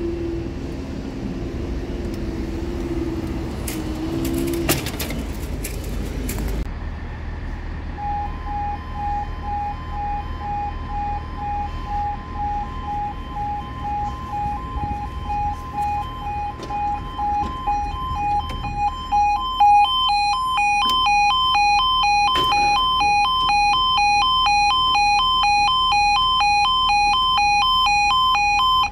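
Level crossing audible warning alarm sounding a two-note alternating yodel, starting about 8 s in and getting louder with a quicker pulse from about 20 s as the crossing sequence starts for an approaching train. Before it, a steady mechanical hum runs for the first few seconds while the barrier rises.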